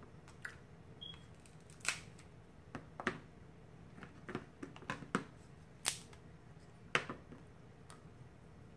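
Boiled crab leg shells cracking and snapping as they are broken apart by hand: a scattering of sharp, irregularly spaced clicks and cracks, the loudest about two, six and seven seconds in.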